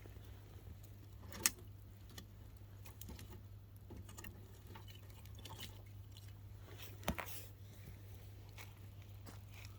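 Campfire crackling: irregular small snaps and pops of burning wood, with a sharper pop about a second and a half in and another about seven seconds in.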